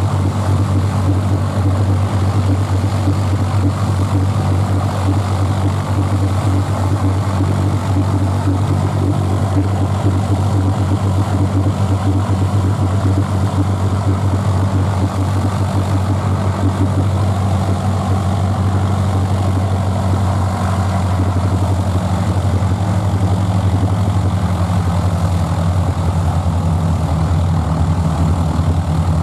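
The Avro Shackleton's four Rolls-Royce Griffon V12 piston engines are running steadily with the aircraft standing on the ground, their propellers turning. It is a loud, even, low drone with no change in pitch.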